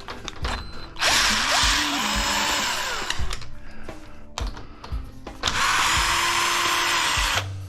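Power drill-driver backing out stainless steel screws from an aluminium shower-door frame, running in two bursts of about two seconds each with small knocks between them.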